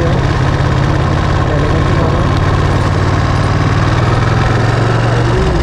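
Ducati Panigale 959's L-twin engine running steadily with a low, even drone; its note shifts slightly about five seconds in.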